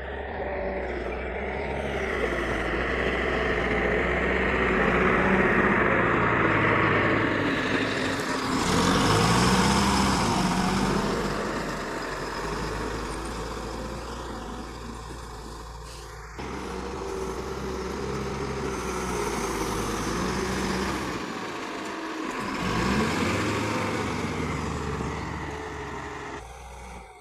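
Heavy diesel machinery engine running under load, its pitch rising and falling as it revs. The sound changes abruptly about sixteen seconds in.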